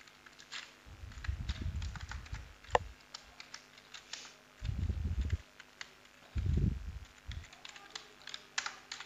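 Computer keyboard typing: scattered, unhurried keystroke clicks as a word is typed out letter by letter. A few dull low rumbles sound in between, the loudest about six and a half seconds in.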